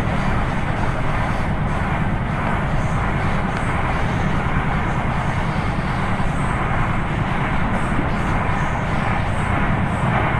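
Passenger train running at speed, heard from an open coach window: a steady, even rush of wheel-on-rail rumble and passing air.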